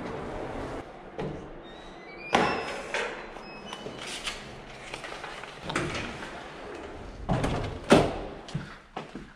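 A series of separate knocks and thuds, with a few short high beeps about two seconds in.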